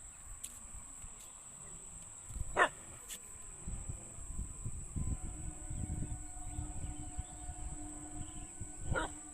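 A dog barking: one sharp, loud bark about a third of the way in and a second bark near the end, each dropping quickly in pitch.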